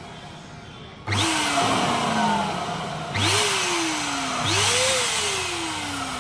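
Electric balloon pump inflating a latex balloon: a motor whir with a rush of air, starting about a second in and restarted twice, each time its pitch jumping up and then slowly sagging.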